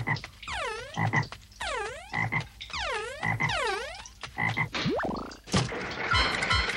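Cartoon frog sound effect, repeated about once a second: a warbling call that glides down and back up in pitch over a soft thump. About five seconds in a quick rising whistle cuts in, and music follows.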